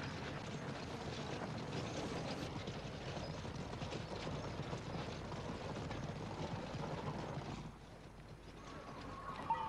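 Hoofbeats of a group of horses galloping together on a dirt track, a dense clatter that drops away about eight seconds in.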